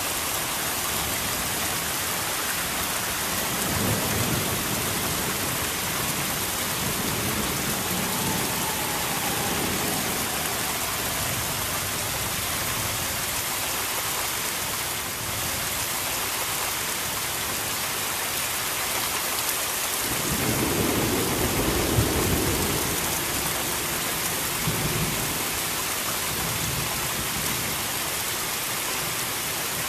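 Steady rain falling through a thunderstorm, with low thunder rumbling: a short rumble about four seconds in and a longer, louder one about twenty seconds in.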